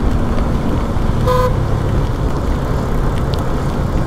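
Steady rush of a motorcycle ride on a rain-wet road, engine, wind and tyre noise together, broken a little over a second in by one short vehicle-horn beep.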